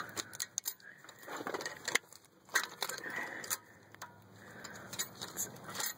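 Hands working parts loose at a BMW X3 rear brake caliper: irregular scraping and rubbing with a few sharp metallic clicks.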